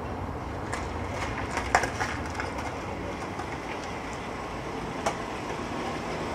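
A steady low rumble with a handful of short, sharp knocks and clicks scattered over it, the loudest about two seconds in and another about five seconds in.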